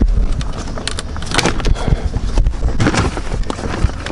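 A plastic lower dash panel being pulled down off its push clips, with a series of plastic clicks, knocks and rattles as the clips let go.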